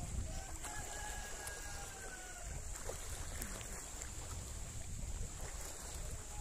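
Wind buffeting the microphone over open sea, a steady low rumble. A faint thin tone, falling slightly, runs from about a second in for a couple of seconds.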